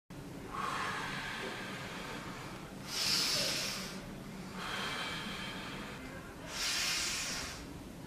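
A COPD patient breathing deeply in and out through his mouth during a stethoscope exam: two slow breath cycles of airy rushing, each with a louder, hissier peak, about three and seven seconds in. A faint steady low hum lies under it.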